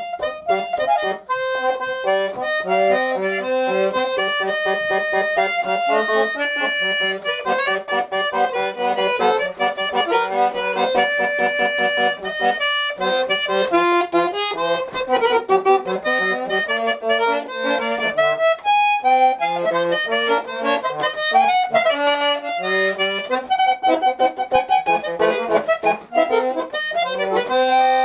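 A small button accordion playing a children's song: a bright melody over steady bass and chord notes, with short breaks about 13 and 19 seconds in.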